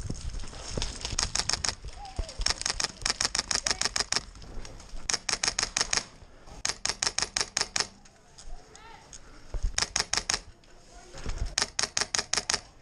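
Airsoft rifle fire: repeated short full-auto bursts of rapid sharp shots, around a dozen a second, with pauses of a second or so between bursts.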